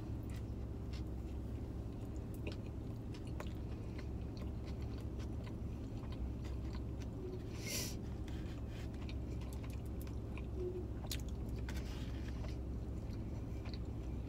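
A person chewing a mouthful of hot dog, with small wet clicks and smacks of the mouth, over a steady low hum.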